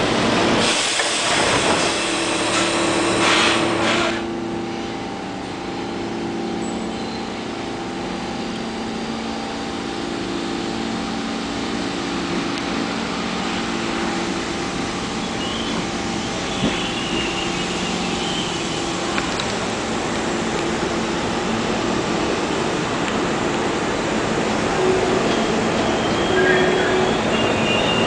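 R32 subway train approaching and pulling into the platform: a loud rumble for the first few seconds, then a steady electrical hum of the train, with high wheel squeal starting near the end.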